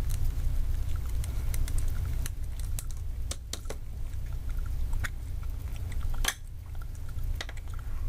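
Small screwdriver clicking and scraping on the screws of a plastic emergency-call pendant as its case is unscrewed and pulled open, with scattered sharp plastic clicks and rattles over a steady low hum.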